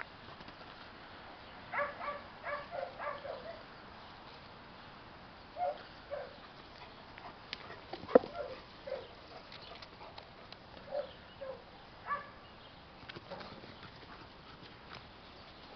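Dogs giving short barks as they play, a quick run of about six near two seconds in and single barks scattered after it. A sharp knock about eight seconds in is the loudest sound.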